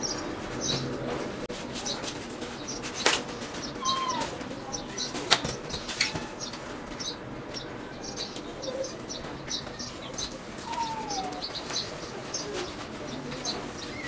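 Cardboard, foam and plastic packing being lifted off and handled: rustling, with three sharp knocks in the first half. Birds chirp over and over in the background.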